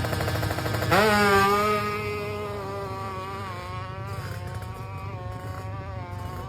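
Drag-tuned Kawasaki Ninja motorcycle engine running, then revved sharply about a second in: the pitch jumps up and it is loudest for a moment, then it settles into a steady, slightly wavering held rev.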